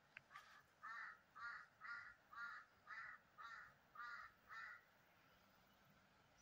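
A bird calling faintly in a quick run of about eight short calls, roughly two a second, that stops after about four seconds.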